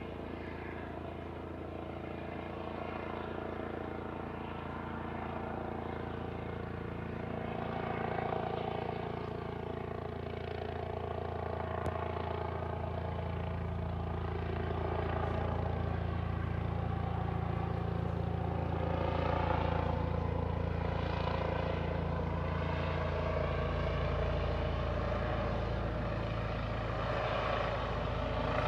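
Police Scotland's Eurocopter EC135 helicopter flying overhead: a steady rotor and turbine drone that grows gradually louder as it comes closer.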